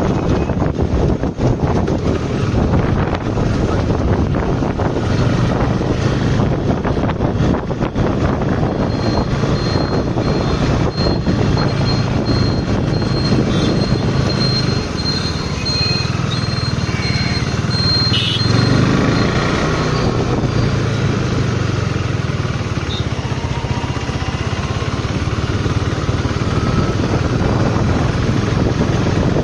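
Motorcycle riding at road speed: a steady low engine drone under heavy wind noise on the microphone.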